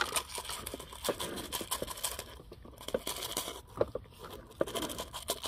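Small decorative pebbles poured from a plastic scoop onto the potting mix around a succulent and worked in by gloved hands: irregular clicking, crunching rattles of stone on stone and plastic.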